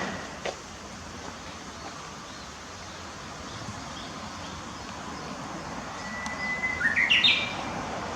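Japanese bush warbler singing one 'hoo-hokekyo' song near the end: a long held whistle, then a quick rising flourish. Two sharp clicks come in the first half second.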